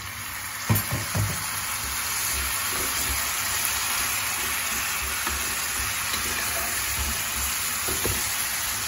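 Chicken pieces sizzling as they fry in hot oil with onion and garlic in a pot, turned with a wooden spoon, with a few knocks about a second in.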